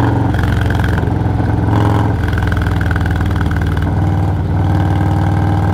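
Harley-Davidson Milwaukee-Eight 117 V-twin engine in Stage 2 tune, running steadily while cruising. It is heard from the rider's helmet, with wind rushing past a visor cracked open.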